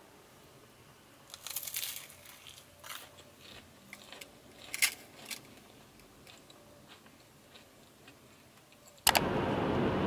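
A few crisp crunches and chewing as a battered fried potato is bitten. About nine seconds in, it cuts suddenly to the steady, louder road and engine noise of a car driving.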